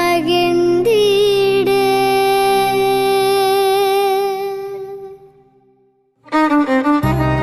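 Music: a long held note that fades away about five seconds in, then after a short gap the music starts again with a low bass line.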